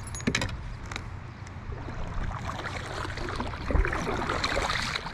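Water splashing and lapping around a kayak, with a few sharp knocks in the first second and a busier stretch of splashing over the last few seconds.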